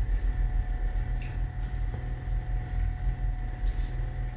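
A steady low machine hum, with a few faint, soft sounds of hands sliding gnocchi dough strips across parchment paper on a cutting board.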